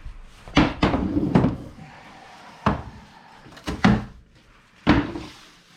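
A series of sharp knocks and thumps, about seven in all and some in quick pairs, from household objects being handled, bumped and set down.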